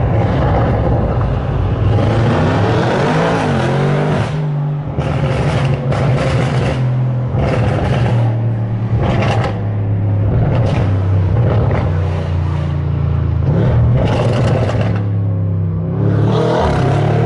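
Audi RS7's twin-turbo V8 with a straight-pipe Milltek exhaust, heard from inside the cabin, pulling through repeated bursts of acceleration. The revs rise and drop back several times.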